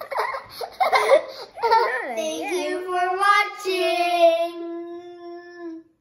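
Children's voices: laughing and chattering for about two seconds, then a child singing one long held note that shifts pitch once midway and stops just before the end.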